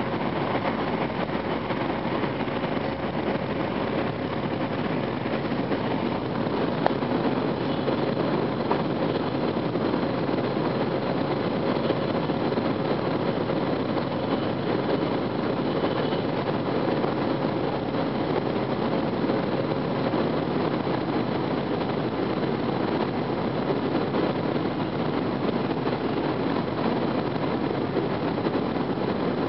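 Steady running noise of an N700 series Shinkansen heard inside the passenger cabin: an even rush and rumble, with a faint steady hum that stops about two-thirds of the way through.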